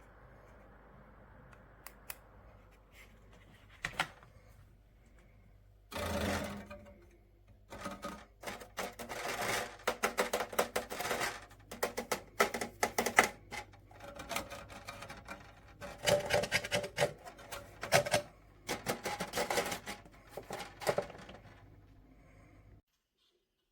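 Rapid, irregular clicking and clattering of hard objects being handled, in dense runs over a faint steady hum, cutting off abruptly near the end.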